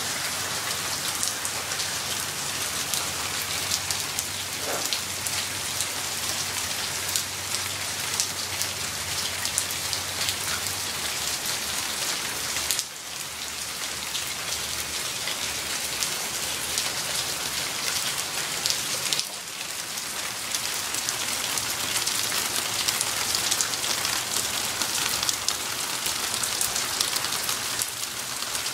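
Steady light-to-medium rain: a dense hiss with many individual drops ticking, dipping briefly in loudness twice.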